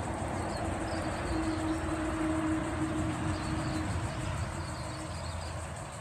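Steady low rumble of outdoor background noise, with a single held humming tone that fades out about five seconds in.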